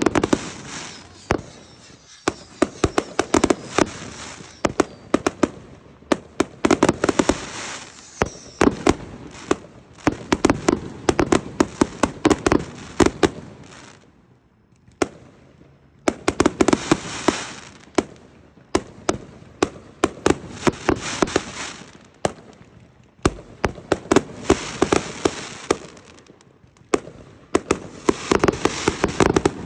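Consumer aerial fireworks going off in volleys: launches and bursts followed by rapid, dense cracking. There are short breaks between volleys, the clearest about halfway through.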